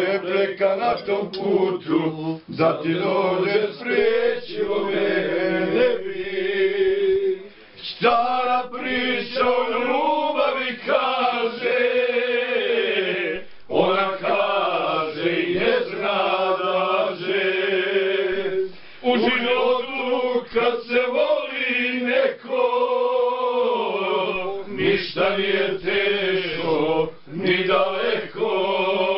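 A group of men singing a song together without instruments, several voices in long held phrases with a wavering vibrato, broken by short pauses about seven, fourteen and nineteen seconds in.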